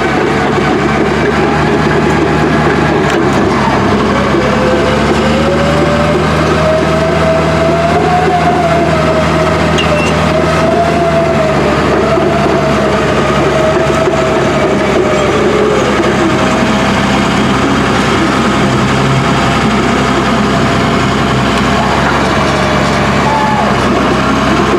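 Old Caterpillar heavy-equipment diesel engine running steadily, with a wavering whine riding over its note; the low engine tone shifts about twelve seconds in.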